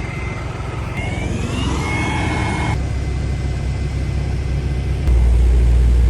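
A mobile crane's engine runs with a steady low rumble, and a thin whine rises in pitch for a second or two. Near the end a louder, deeper rumble takes over.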